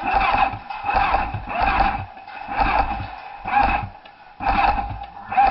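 Rhythmic footsteps, one thump with rustling about every second, as the player walks with a body-worn action camera.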